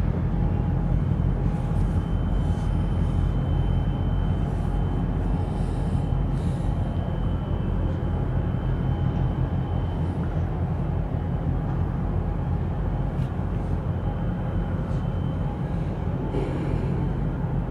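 Deep, steady rumble of large marine diesel engines from a tug working against a container ship's hull, with a faint thin high whine over parts of it.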